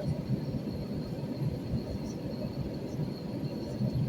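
Airliner cabin noise: a steady low rumble of jet engines and rushing air, heard from inside the cabin, with a faint steady high whine above it.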